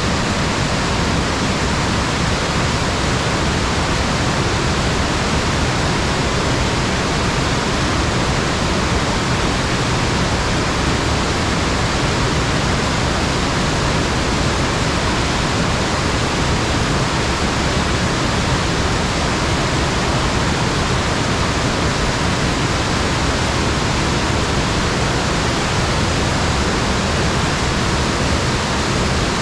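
Sugar River waterfall: a steady, loud rush of water falling over the falls, even and unbroken throughout.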